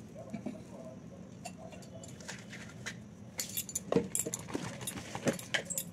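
Short, irregular metallic clinks and light rattles of bangles and brass puja utensils being handled, growing busier over the second half with the sharpest clink about four seconds in.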